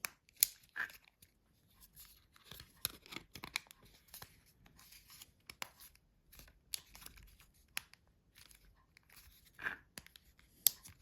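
Plastic parts of a Nokia 7210 mobile phone being handled and pressed together as the battery and back cover are fitted: scattered sharp clicks and snaps with short scraping and rubbing between them. The loudest clicks come about half a second in and near the end.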